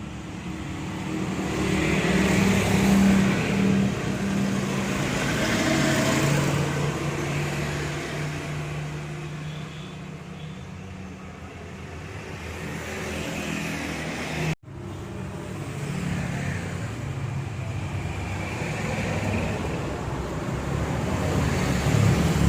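Road traffic: motor vehicle engines passing, swelling and fading over several seconds, with a sudden brief break about two-thirds of the way through.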